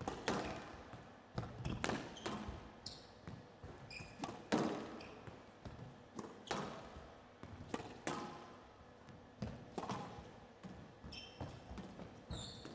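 Squash rally: the ball cracking off rackets and off the walls of a glass court in an irregular rhythm of sharp hits, with a few short high shoe squeaks on the court floor.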